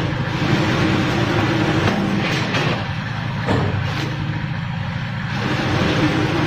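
Automatic vertical bag-packing machine running: a steady low mechanical hum with a motor tone that comes and goes, and a few sharp clacks as bags are sealed and released.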